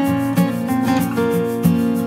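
Background music: held notes with a steady, regular beat.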